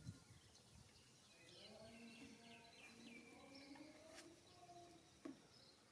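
Near silence, with faint chirping calls through the middle, then a click and a soft knock near the end.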